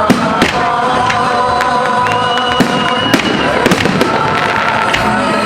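Festive fireworks going off: several sharp bangs of bursting shells, the loudest right at the start, over music playing in the background.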